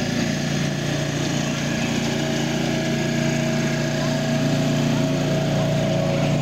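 The small engine of a miniature diesel-outline locomotive running steadily as it hauls a passenger train past.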